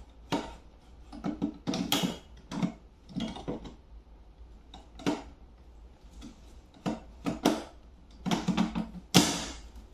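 Hard plastic clicking and knocking as a plastic rod stand is pushed and worked into its plastic mount on the side of a tackle box. The clicks come irregularly throughout, with one sharp loudest knock near the end.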